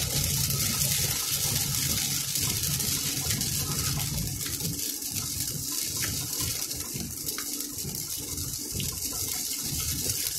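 Heavy rain and wet-road tyre spray heard from inside a moving car on a highway: a steady hiss over a low road rumble, with a few faint ticks of drops.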